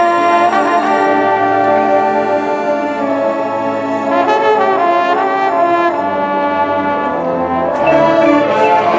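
High school marching band's brass section playing long held chords, swelling louder near the end with sharp percussion hits.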